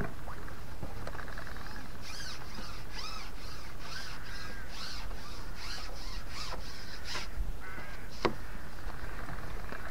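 Birds calling: a run of short, high, arching chirps, several a second, over a steady low rumble, with a single sharp click about eight seconds in.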